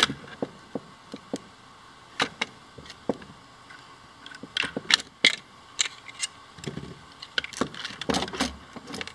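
White 3D-printed plastic parts clicking and clacking against each other as they are handled and fitted together by hand: irregular sharp clicks, with a busier cluster a little before the end.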